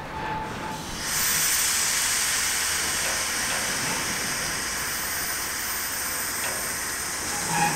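Steady loud hiss of compressed air from a freight train's air brakes, starting suddenly about a second in as the tank wagons creep along at walking pace. A brief squeal comes near the end.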